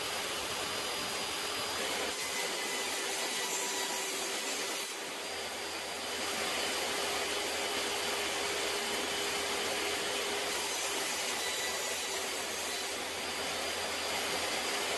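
Benchtop table saw running steadily while thin cedar strips are ripped to a 60-degree bevel, a continuous motor-and-blade noise with a faint steady hum through it.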